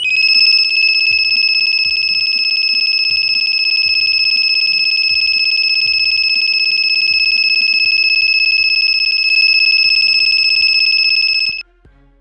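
Active buzzer driven by an Arduino Uno, giving one loud, continuous high-pitched beep that cuts off suddenly after about eleven and a half seconds.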